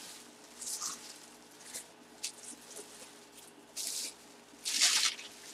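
Bubble wrap and plastic packaging around a box rustling and crinkling as it is handled, in short scattered bursts, the loudest near the end.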